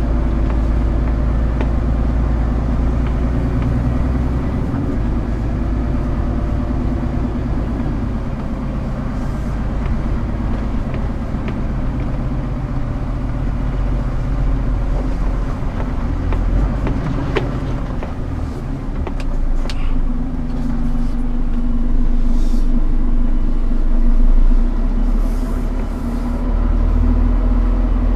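Scania R410 concrete truck's diesel engine running steadily with a low rumble, getting somewhat louder for several seconds in the second half.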